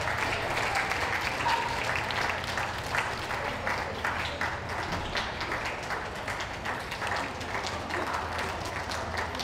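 Audience applauding, a dense patter of many hands clapping, easing off a little toward the end.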